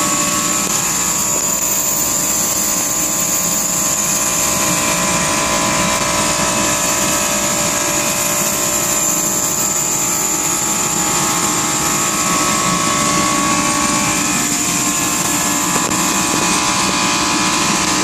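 Refrigeration skid with scroll compressors running: a loud, steady machine drone made of many even hum tones, with a high, steady whine above them.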